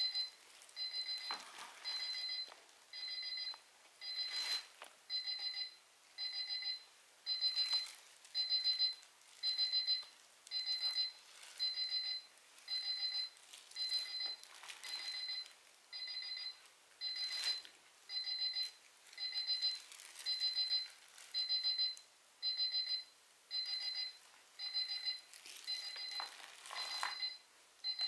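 Digital alarm clock beeping about once a second, each beep a quick run of high electronic pulses. The beeping stops at the very end, as hands reach the clock. Now and then there is a soft knock or rustle of movement on the stage floor.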